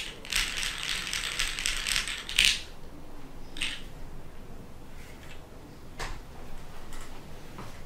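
Fast typing on a custom mechanical keyboard with lubed SP Star Meteor White switches, an aluminium plate and DCS keycaps: a quick run of keystrokes for about two and a half seconds, ending in a louder flurry. After that come a few scattered key clicks and a knock about six seconds in, as the keyboard is handled and set down upside down.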